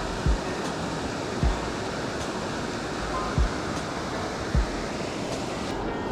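Steady rushing of river water spilling over a waterfall, broken by short, dull low thumps every one to two seconds.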